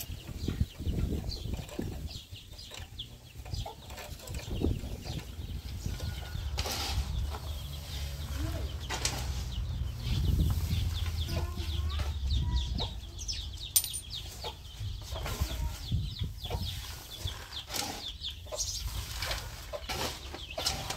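A shovel scraping and turning a pile of soil mixed with straw on a tarp, in repeated short scrapes and knocks, with chickens clucking now and then in the background.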